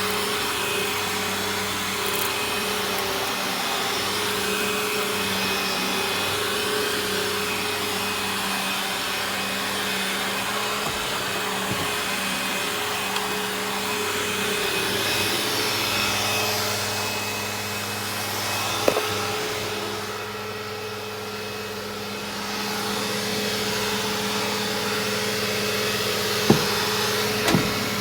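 Eureka The Boss upright vacuum cleaner running steadily over carpet, a motor hum under the rush of suction. It goes briefly quieter about two-thirds through, and a few sharp ticks come near the end.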